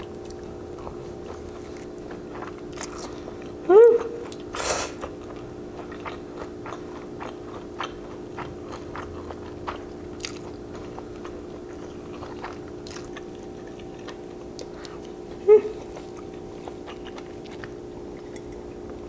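Close-up eating sounds: glass noodles (japchae) slurped and chewed, with many small wet mouth clicks. A couple of short, louder slurps come about 4 seconds and 15 seconds in.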